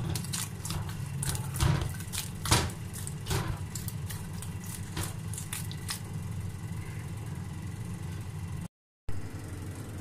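Hands kneading soft whole-wheat roti dough in a steel tray: repeated wet squishing and slapping, busiest in the first six seconds, over a steady low hum.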